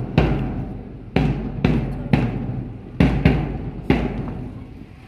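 Drum beaten with heavy single strikes, about eight in an uneven rhythm, each ringing out briefly. The drumming stops about four seconds in.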